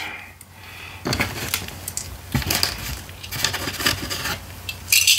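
Loose plastic Lego pieces clicking and rattling as a hand rummages through them: a run of irregular clinks, the loudest near the end.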